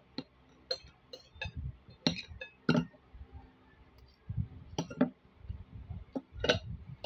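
A metal spoon and fork clinking and scraping against a plate while eating: about a dozen short, sharp clinks at irregular intervals.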